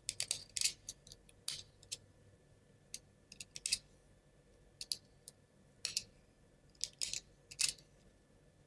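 Small plywood gears being cleaned of burrs on their teeth by hand: irregular light clicks and short scratchy strokes of wood on wood and tool on wood.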